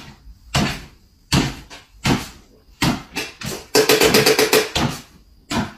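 Sharp taps and knocks, roughly one every 0.7 seconds, with a quick run of rapid taps a little before the end: a small dog hopping on its hind legs, its paws and claws striking a wooden floor.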